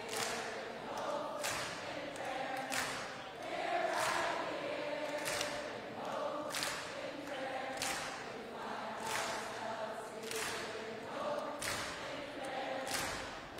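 A crowd of protesters singing together in unison, a slow sustained song with a sharp accent at an even pace of about one every 1.3 seconds.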